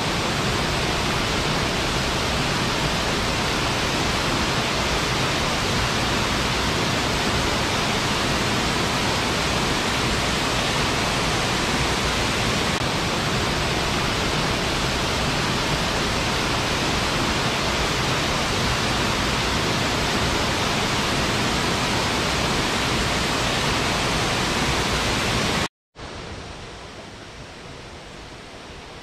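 Waterfall falling into a rock pool: a loud, steady rush of water. About 26 s in it cuts out for an instant and comes back as a quieter rush.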